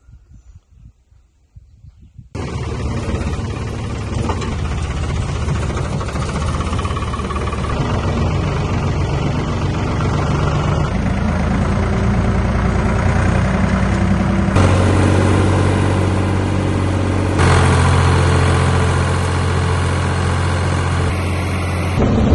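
Old Ford backhoe's engine running steadily and loud, heard from up close on the machine. It cuts in abruptly about two seconds in, after a moment of faint knocks.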